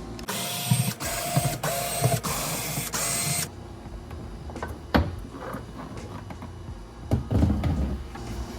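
Cordless power screwdriver whirring in five short back-to-back bursts, backing out the screws that hold a plastic trim panel. A single sharp knock follows about five seconds in, and a brief clatter near the end.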